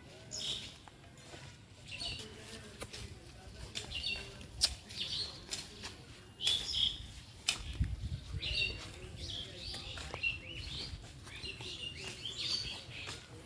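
Small birds chirping, short high calls repeating every second or so, mixed with scattered sharp clicks and a brief low rumble about eight seconds in.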